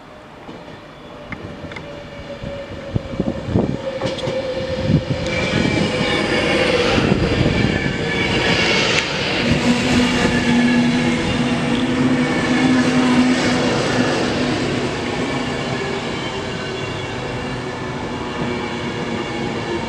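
Avanti West Coast Class 390 Pendolino electric train running in along the platform. It grows louder as it approaches, with wheels clicking over rail joints at first, then a steady rumble of wheels on rail carrying a faint electric whine.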